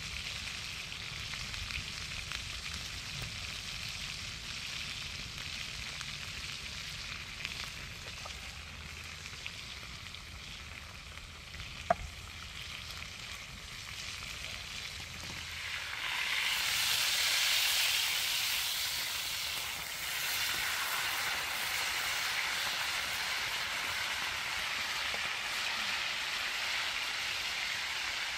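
A large coil of homemade sausage frying in a pan over an open fire, sizzling steadily; the sizzle grows clearly louder and fuller about halfway through. A single sharp click sounds a little before that.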